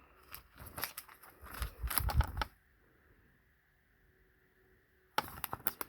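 Trading cards being handled by hand: a quick string of small clicks and rustles for about two and a half seconds, a gap with nothing, then more clicking near the end.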